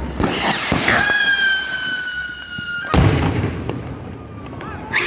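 Fireworks going off. A loud crackling burst is followed by a firework whistle, a steady high whistle that falls slightly in pitch for about two seconds. It ends in a sharp bang about three seconds in, and another loud burst comes near the end.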